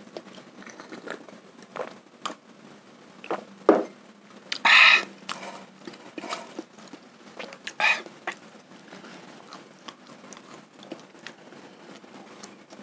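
Wet mouth sounds of someone eating sate kere (soybean-pulp satay): chewing and lip-smacking with scattered small clicks, and a few louder smacks, the longest and loudest about five seconds in.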